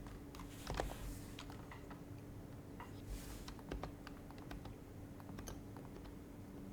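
Typing on a Happy Hacking Keyboard Professional HYBRID Type-S, its silenced Topre switches giving soft, muted keystrokes. The keystrokes come irregularly, with quicker runs about a second in and again about three seconds in.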